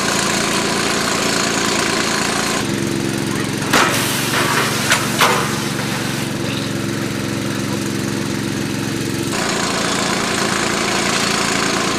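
A small engine running steadily, with a loud hiss over it for the first couple of seconds and again from about nine seconds in, and a few sharp knocks around four to five seconds in.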